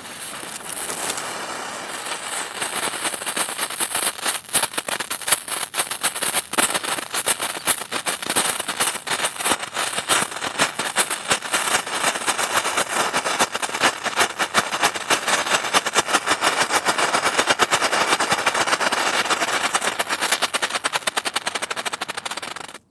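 Firework crackles: a dense, continuous stream of rapid sharp pops and snaps, building slightly in the first couple of seconds and stopping abruptly near the end.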